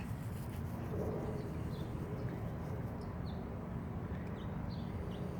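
Bird chirping: short, high, falling chirps, about one a second, coming closer together near the end, over a steady low rumble.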